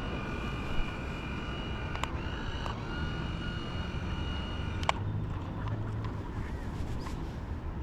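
Small RC fishing boat's motor running with a steady high-pitched whine, shifting pitch twice and cutting off about five seconds in, with a few sharp clicks along the way.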